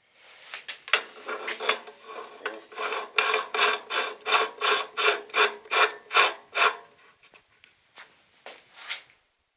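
Metal tool scraping and rasping on a cast-iron nut in even, repeated strokes, about three a second. The strokes build up over the first few seconds, then thin out to a few scattered scrapes after about seven seconds. Cast iron cuts to a grey powder rather than shavings.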